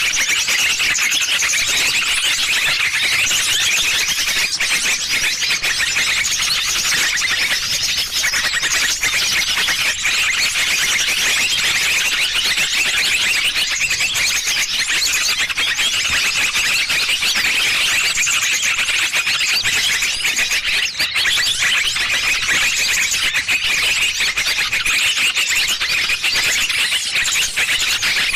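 Bird-lure recording of many small birds calling at once: dense, continuous high-pitched chirping and twittering with no pause.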